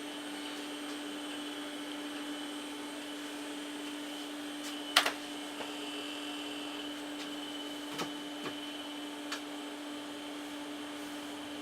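A 386 PC starting up: a steady fan and power-supply hum with a constant low tone, broken by one sharp click about five seconds in and a few fainter clicks a few seconds later.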